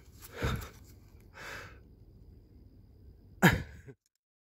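A man coughing three times, the last cough the loudest, then the sound cuts off abruptly.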